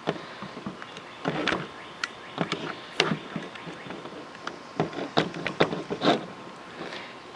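Plastic parts and shell of a paintball marker being handled during disassembly: an irregular run of short clicks, taps and brief scrapes.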